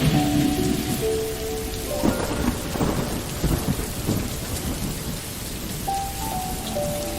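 Steady rain with thunder rumbling, loudest a couple of seconds in. A soft melody of held notes sounds over it at the start and again near the end.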